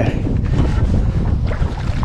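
Wind rumbling steadily on the microphone over open water.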